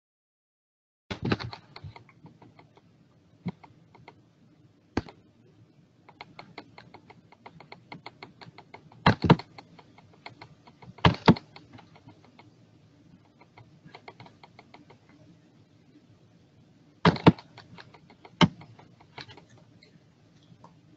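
Typing on a computer keyboard: runs of quick key clicks, with a few louder, sharper key strikes scattered through.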